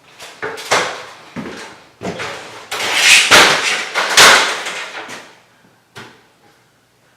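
A run of loud knocks, bumps and clattering lasting about five seconds, loudest in the middle, with one last short knock about a second later.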